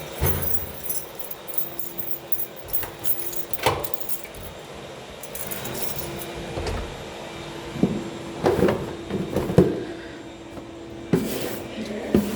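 Irregular knocks, thuds and rattles, like objects being handled or bumped, over a steady low hum.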